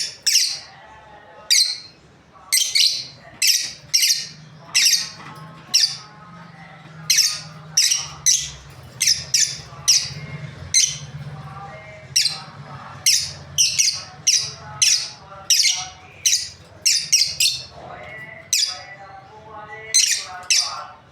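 Lovebirds giving repeated short, shrill, high-pitched chirps in irregular runs of one to three a second, with a faint low hum underneath for several seconds in the middle.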